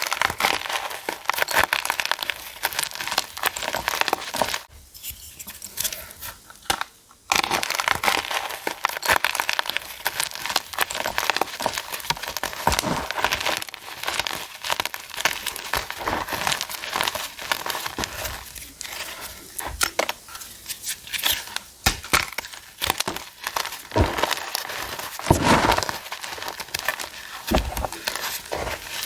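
Blocks of gym chalk being crushed and crumbled, a dense, crisp crackling and crunching, with a brief lull about five seconds in.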